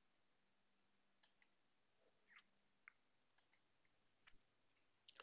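Near silence with a few faint, short clicks of a computer mouse, some in quick pairs, in the middle of the stretch.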